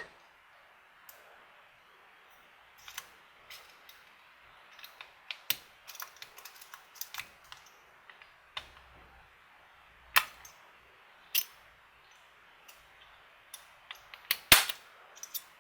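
Irregular light metal clicks and ticks of a lock pick and tension wrench working the pins of a see-through practice lock during single-pin picking, with a few sharper clicks later on.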